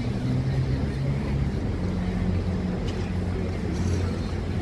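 City street ambience: a steady low rumble of running engines.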